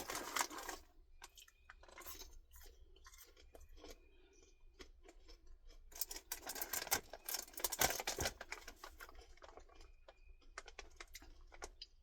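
A person chewing caramel-coated popcorn: irregular crisp crunching, heaviest at the very start and again from about six to nine seconds in.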